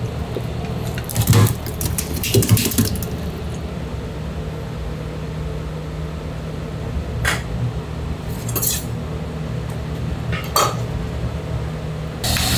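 Kitchen clatter: sharp knocks and clinks of utensils and metalware, a cluster about a second in and again around two and a half seconds, then a few lone clicks, over a steady low hum.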